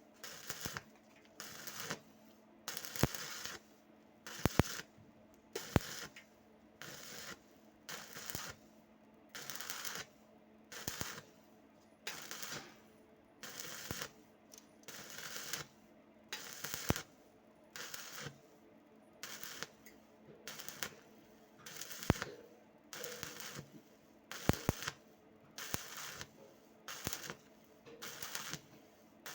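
Stick welding arc on pipe crackling in short, even bursts, about one a second, with sharp pops among them: the rod is worked in a rhythmic on-off stroke. A faint steady hum runs underneath.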